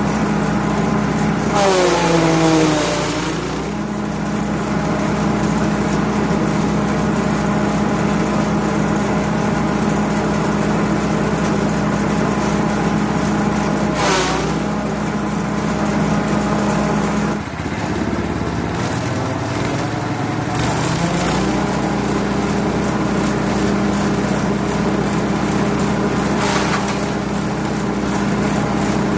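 A grass chopper's 5.5 HP petrol engine running steadily at high speed, its pitch dropping sharply about two seconds in and again around eighteen seconds before climbing back. These dips are the engine bogging under load as material is fed in. Brief bursts of cutting noise come several times.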